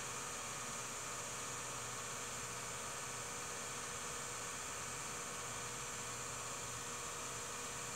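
Steady hiss with a faint electrical hum and no other sound: the noise floor of a silent home-movie transfer.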